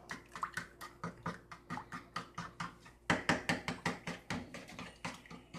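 A whisk beating a bowl of liquid wet ingredients: quick, even strokes knocking against the bowl about four to five times a second, louder from about three seconds in.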